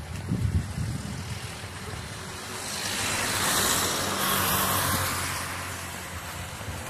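A van drives past close by on the road: its tyre and engine noise swells, peaks about three to four seconds in and then fades away.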